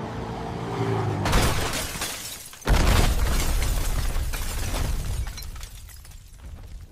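AI-generated car-crash sound effects: a car engine revs hard, then comes a crash of breaking metal and glass about a second in. A loud, deep explosion follows a little later and dies away with crackling and falling debris.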